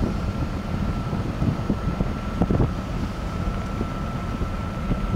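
Wind buffeting the microphone: an uneven low rumble with gusty thumps, over a thin steady high tone.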